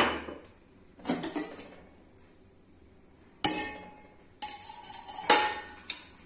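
Stainless-steel kitchenware clanking: a steel mortar-and-pestle weight and a steel plate lid are lifted off a steel pot and set down. About half a dozen sharp metal clanks, some left ringing.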